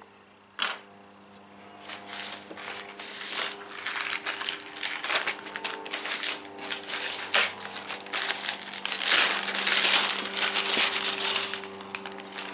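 Small hard plastic parts clattering and rattling as they are picked up and handled, with one sharp click about half a second in.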